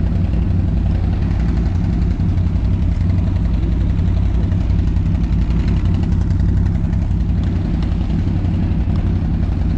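ATV engine running steadily at low revs, with no revving.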